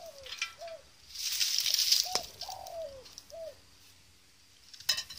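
A dove cooing, a short coo, a longer falling coo and another short coo, with the phrase heard twice. A louder hiss runs for over a second starting about a second in, with a sharp click about two seconds in.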